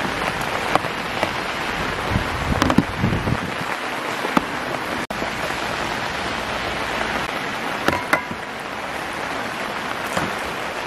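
Steady rain falling hard, with a few light knocks and clicks over it. The sound cuts out for a moment about five seconds in.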